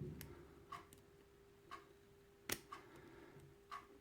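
Faint small metallic clicks of a lock pick and tension wrench working the pins of a Quickset pin-tumbler lock held in a false set, the sharpest click about two and a half seconds in. Under them runs soft, even ticking about once a second, with a faint steady hum.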